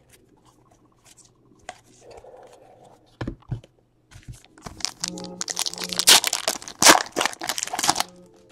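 Crinkling and tearing of a trading card pack's plastic foil wrapper being ripped open, loudest for about three seconds past the middle, after a few light taps and knocks of cards being handled.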